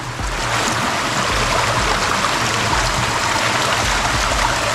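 Shallow water running steadily over an algae-covered concrete surface, an even rushing sound, as feet in sandals wade through it.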